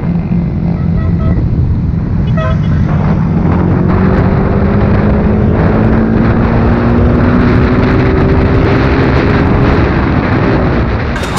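Yamaha R15's single-cylinder engine running under way at road speed, with wind rushing over the microphone. The engine note climbs slowly as the bike accelerates, then drops back near the end as it eases off.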